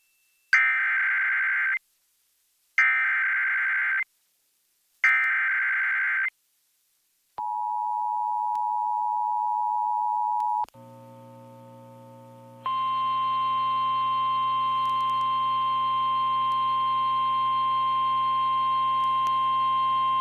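Emergency Alert System alert opening: three short screeching SAME header data bursts with about a second between them, then the two-tone EAS attention signal held for about three seconds. A second, longer steady alert tone with a buzzy hum follows about two seconds later.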